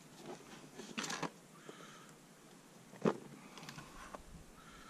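Faint handling noise of fishing gear being picked up: light rustling with a short cluster of knocks about a second in and a sharper knock about three seconds in, as the bait boat is got out.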